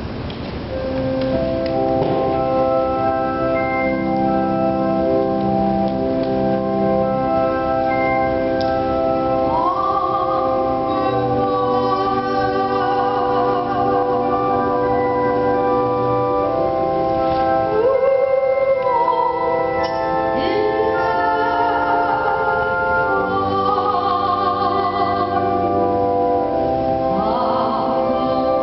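Organ playing sustained chords, joined about ten seconds in by singing with a strong vibrato.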